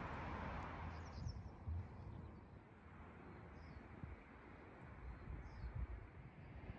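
Background music fading out about a second in, leaving faint outdoor ambience: a low rumble with a few short, high bird chirps scattered through it.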